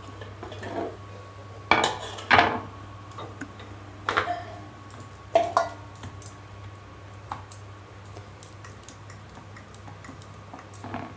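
A few clinks and knocks of a steel bowl and a wooden rolling board being handled on a stone counter, some with a brief metallic ring, in the first half. Then only faint taps as a ball of dough is pressed flat and rolled with a wooden rolling pin.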